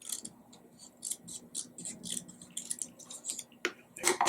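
Scissors snipping through paper in a quick series of short, crisp cuts, with one louder sharp click about four seconds in.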